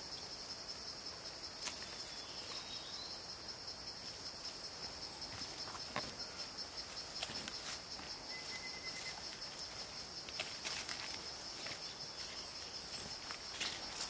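A steady, high-pitched insect chorus, with a few scattered short clicks and knocks.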